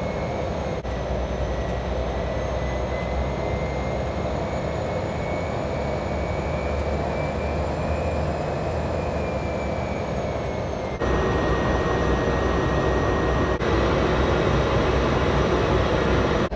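Cessna 208 Caravan's PT6A turboprop engine and propeller running steadily while taxiing, heard inside the cockpit as a constant roar with a faint high turbine whine that drifts slightly in pitch. The sound gets louder after a cut about two-thirds of the way through.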